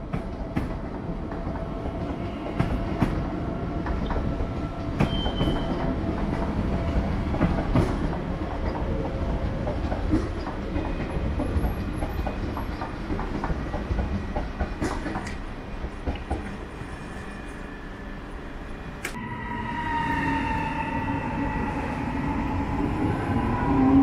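Electric passenger train running on the rails: a steady rumble with many small clicks of wheels over rail joints. After a sharp click about three-quarters of the way through, a whine from the electric traction equipment sets in, one tone rising toward the end as the train picks up speed.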